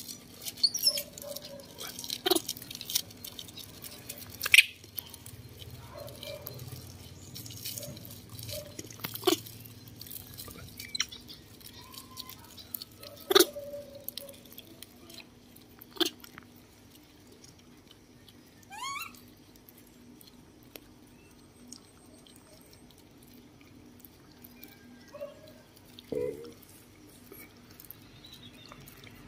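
Small dogs and baby macaques crunching and chewing crumbs off a concrete floor: a run of short sharp clicks and crunches. A couple of short animal calls break in, one a quick rising squeak about two-thirds of the way through.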